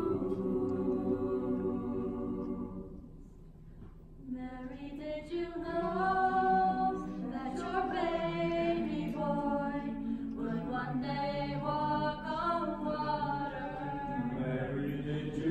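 Mixed-voice choir singing a cappella in close harmony. A held chord fades out about three seconds in, and after a brief hush the voices come back in with a new phrase.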